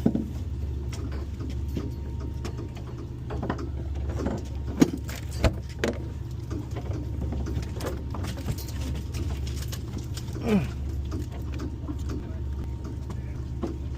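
Boat engine running steadily, with scattered knocks and clicks, a couple of sharp knocks about five seconds in and a short falling squeak about ten seconds in.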